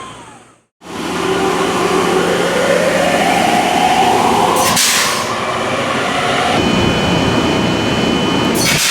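An electric train's air-compressor drain valve blowing off with a sharp hissing 'shupan' blast of air about four seconds in, and again near the end; the blast vents moisture condensed out of the compressed air. Under it runs a steady machinery hum that rises in pitch before the first blast.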